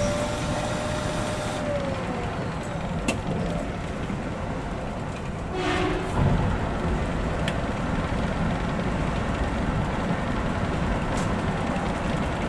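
Cup coffee vending machine grinding beans: a steady whine that winds down and stops about two seconds in. After it comes the steady running rumble of the Kintetsu 80000 series electric train, with a few sharp clicks and a brief hiss near the middle.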